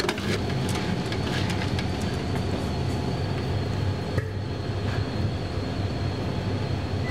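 Electric potato ricing machine running steadily with a low hum as cooked potato is pressed through its perforated drum, with light clicks and scraping from the stirring arm through the first few seconds.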